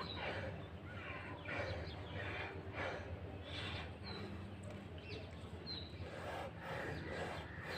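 A man breathing hard during push-ups, a noisy breath every second or so. A bird chirps briefly twice, about four and six seconds in.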